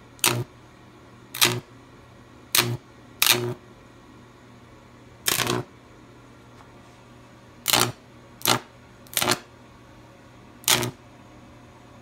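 High-voltage arc on a Jacob's ladder powered by a microwave oven transformer, buzzing in short bursts: about nine in all, each under half a second, at irregular gaps. A faint low hum runs between the bursts.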